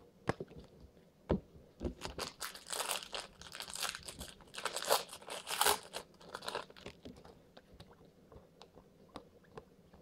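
A foil trading-card pack wrapper being torn open and crumpled, crackling and crinkling for about five seconds in the middle, with a few scattered sharp clicks before and after.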